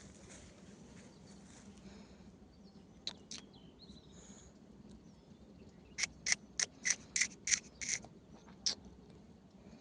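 A bird calling: two short chirps about three seconds in, then a quick run of about nine loud, sharp, high chirps, three to four a second, near the end.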